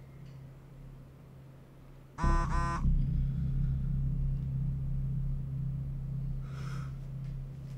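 Phone text-message alert: a quick double electronic tone about two seconds in, as a new message arrives. A low, dark drone swells in with it and holds underneath.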